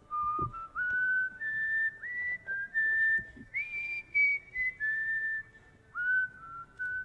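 A solo whistled tune: one high melody line of short notes, several of them sliding up into pitch.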